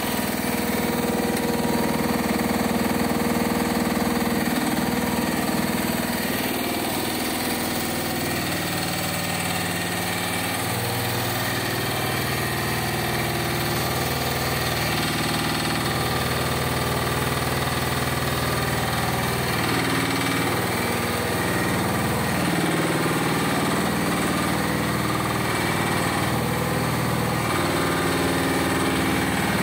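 Tigon TE10 HD mini excavator's engine running continuously, its note shifting a few times as the levers work the hydraulics.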